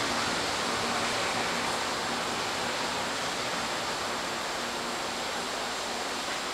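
A steady, even hiss with a faint low hum under it and no distinct events.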